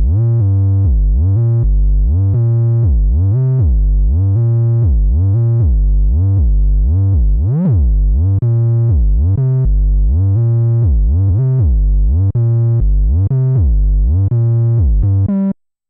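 ASM Hydrasynth synthesizer played from its keyboard: a bass-heavy patch whose filter opens and closes in a steady pulse about twice a second, one sweep near the middle reaching much brighter. It cuts off abruptly near the end.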